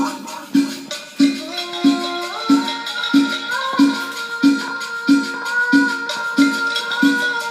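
Music played through a 2000-watt Musysic line-array PA speaker during a sound check: a steady beat about every two-thirds of a second, with held notes stepping upward one after another over the first few seconds and then sustaining.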